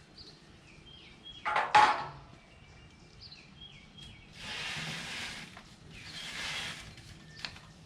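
A short loud scrape with a ringing pitch about two seconds in, then two soft rushes of noise, while birds chirp faintly.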